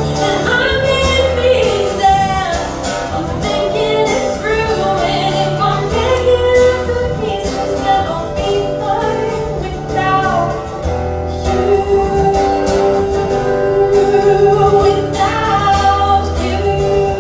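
Live band performance of a pop song: a singer holds long, sliding notes with few clear words over low bass notes that change every few seconds.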